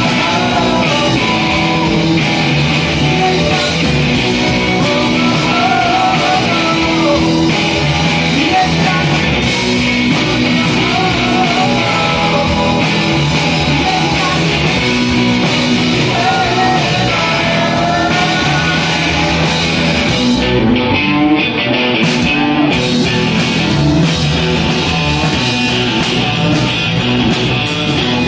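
A live rock band playing loud: a male lead singer singing over electric guitars, bass guitar and a drum kit.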